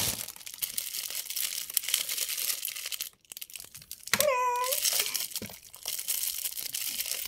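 Clear plastic packaging crinkling and rustling as a bundle of makeup brushes is handled, with a brief lull a little after three seconds in. A short voice-like sound is heard about four seconds in.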